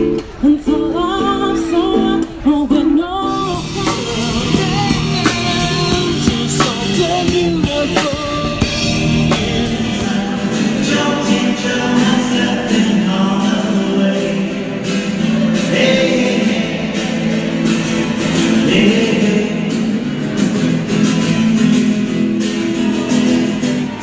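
Live street music: a woman singing to an acoustic guitar, which cuts about three seconds in to another song with a steady beat and sustained low notes.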